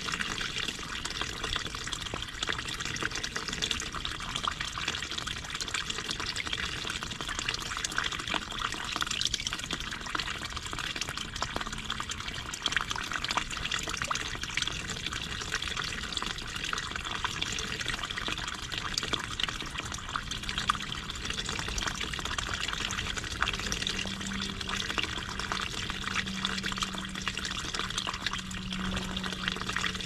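Garden stream running steadily over stones, a continuous splashing trickle of water.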